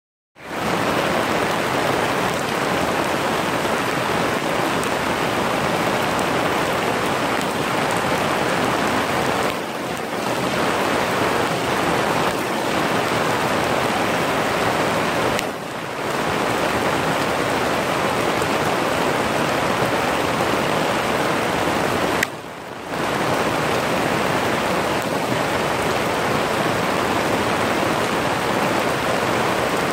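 Steady rain falling on lotus leaves and foliage, an even hiss that briefly drops in level three times.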